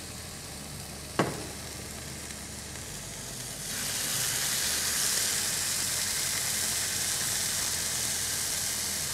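Marinated chicken breast sizzling as it fries in a hot nonstick pan, cooking in the olive oil of its own marinade with no extra oil added. A single sharp click about a second in; about three and a half seconds in the sizzle turns louder and brighter and then holds steady.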